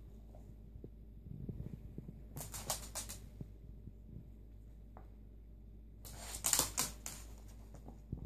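Two Lhasa Apsos' claws clicking and scrabbling on a laminate floor in two quick flurries, about two and a half seconds in and again, louder, about six seconds in, with soft thumps of paws between.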